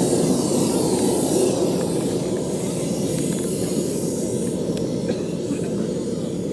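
Model jet's turbine engine running as the radio-controlled jet taxis away, a steady rushing exhaust noise with a high hiss that slowly fades.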